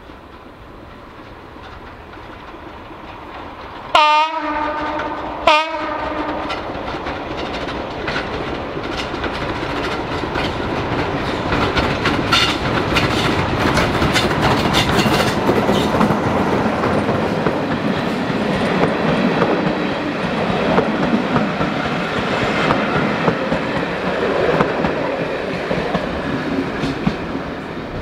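A diesel locomotive-hauled train approaches, growing louder, and sounds two short horn blasts about a second and a half apart. It then passes close by, with the engine running under load and the wheels clicking over rail joints.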